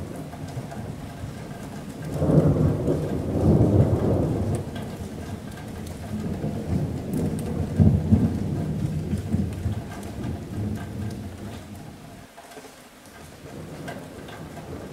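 A long roll of thunder over steady rain pattering on a metal roof. The rumble builds about two seconds in, swells again around eight seconds, and dies away near the end.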